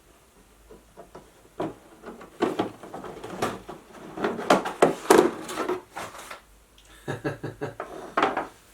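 Handling noise: a run of knocks, clicks and rattles as a portable metal-cutting bandsaw and its parts are moved and examined by hand, busiest in the middle and again near the end.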